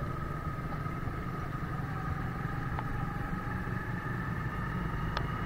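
Motorcycle engine running steadily as the bike rolls slowly, a low rumble with a steady whine over it.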